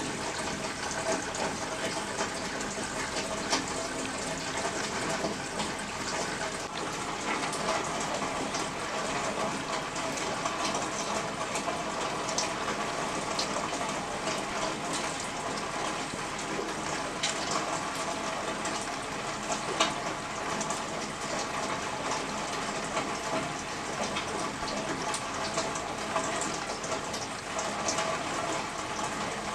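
Steady rain with water running and splashing, and many small drops ticking sharply through it.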